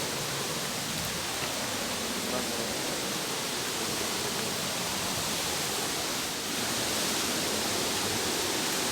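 Steady hiss of rushing water, dipping briefly about six seconds in.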